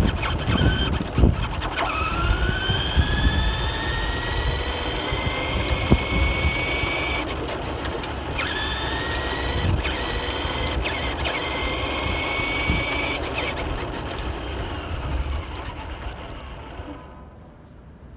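RC car's motor whining, rising in pitch as the car speeds up and breaking off abruptly when the throttle is let off, then winding up again, over a low rumble. The sound fades away near the end as the car moves off.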